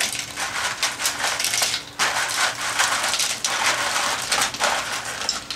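Ice cubes poured from a plastic container into a blender jar, clattering against the jar and each other in a dense stream of clicks, with a short lull about two seconds in.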